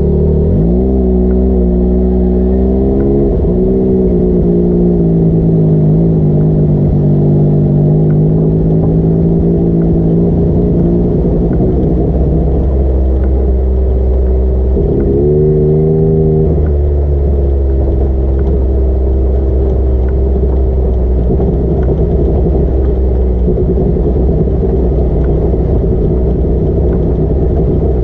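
A vehicle engine running under way. It revs up just after the start, holds a steady pitch with small rises and falls, and revs briefly again a little past the middle before settling back to steady running.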